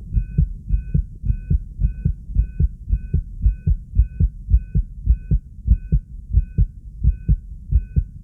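Human heartbeat beating fast and regularly: a rapid run of low thumps, the heart raised by excitement. A faint high electronic tone pulses in short dashes behind it.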